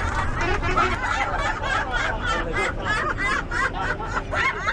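A group of people laughing together in quick, repeated 'ha-ha' bursts: a led laughter-yoga exercise. The laughter fills a bus interior, with a steady low rumble underneath.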